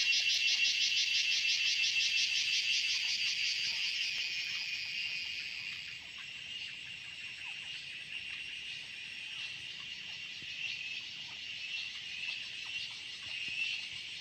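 Evening insect chorus: a dense, pulsing high-pitched trill, loudest in the first few seconds and easing to a softer steady drone about halfway through.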